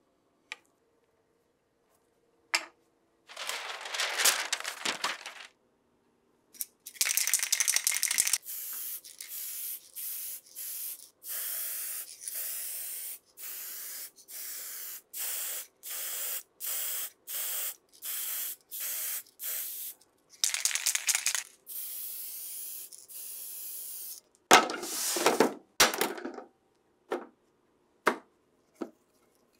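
Aerosol can of varnish spraying in a long series of short hissing bursts, about one a second, some held a little longer. Before the spraying a cloth rubs over the wooden cabinet, and near the end there are handling noises and a few sharp knocks.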